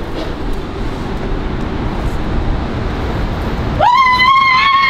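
Low, steady rumble of outdoor city noise on a high-rise balcony, growing slowly louder. Near the end a high, held musical note with overtones starts suddenly, the opening of music.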